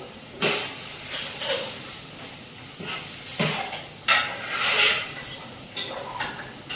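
Food sizzling in hot oil in a cooking pot, flaring up in repeated surges of hiss as it is stirred.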